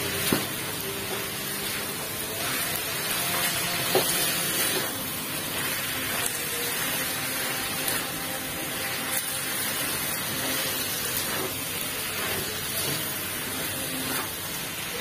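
Minced chicken sizzling in oil in a non-stick wok while a silicone spatula stirs and scrapes it, with a few sharp taps of the spatula on the pan, the loudest about four seconds in. The chicken is already crumbly and nearly cooked.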